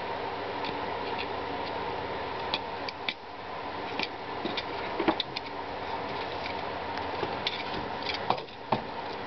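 Light, irregular clicks and scrapes of a snap-off utility knife blade slitting the leathery shells of ball python eggs, over a steady mechanical hum.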